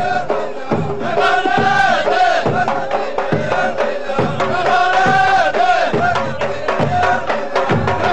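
Ahwach: a men's choir chanting together in long held phrases over frame drums beaten about once a second, with sharper strikes and claps between the beats.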